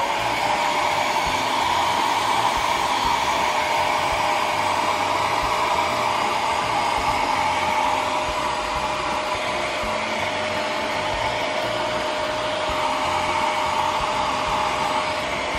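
Small handheld hair dryer running steadily, blowing onto a silkscreen to dry its freshly coated photo emulsion. A faint steady tone joins the airflow a few seconds in.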